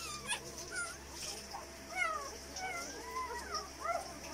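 Newborn Belgian Malinois puppies squeaking and whimpering: a run of short, high squeaks that rise and fall in pitch, about two or three a second.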